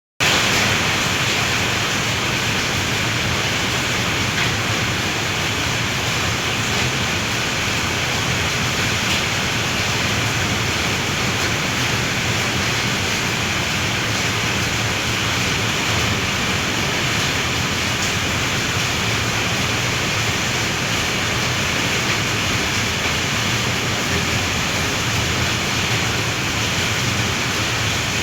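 Heavy rain pouring down, a steady, unbroken hiss.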